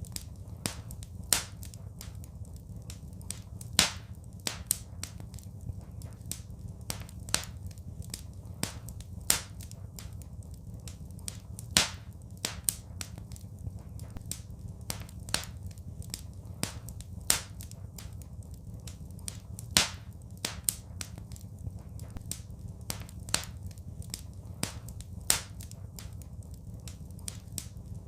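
Wood fire crackling: irregular sharp pops and snaps, a few a second, some louder than others, over a steady low rumble.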